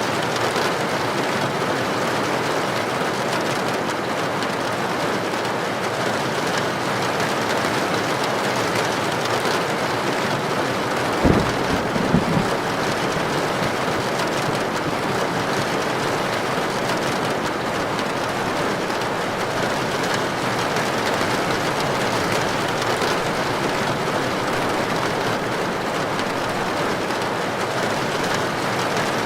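Heavy rain falling steadily on a tin roof, an even hiss. Two brief low thumps sound about eleven and twelve seconds in.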